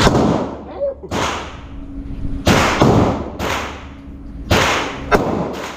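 Semi-automatic pistol shots fired in an indoor shooting range, about eight at irregular spacing, each sharp crack followed by an echo that rings off the concrete hall.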